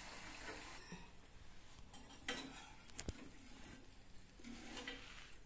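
A few light clinks of a steel slotted spoon against the frying pan and plate as fried baby corn bajji are lifted out of the oil, the sharpest about three seconds in. A faint sizzle of hot oil can be heard at the start.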